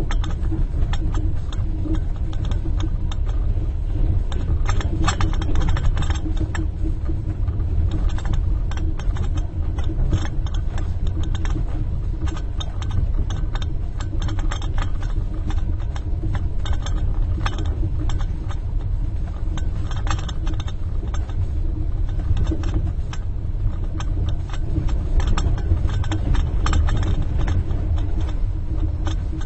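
Inside a moving train compartment: the steady low rumble of the train, with a spoon rattling and tinkling against a cup in quick, irregular clinks throughout.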